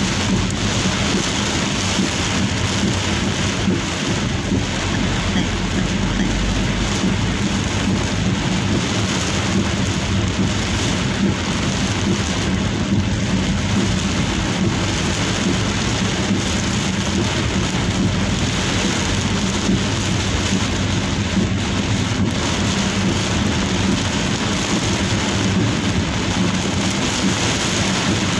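Heavy rain drumming steadily on the roof and windscreen of a moving Daihatsu Gran Max, heard from inside the cabin, with the low steady hum of the engine and tyres on the wet road beneath it.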